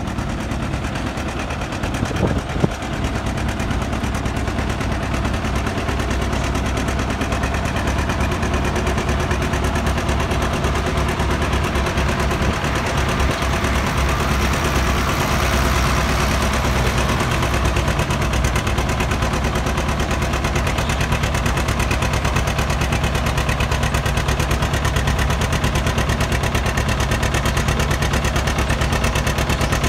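A 1952 John Deere Model R's two-cylinder diesel engine working hard under load as the tractor pulls a sled, its exhaust a rapid, even beat.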